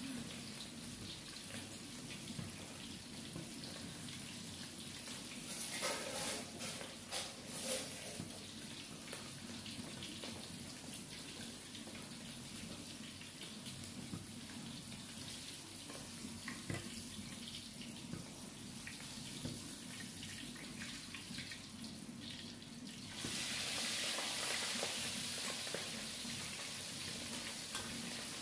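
Water running from a tap into a sink, with a few louder splashes and knocks. Near the end a louder steady hiss sets in.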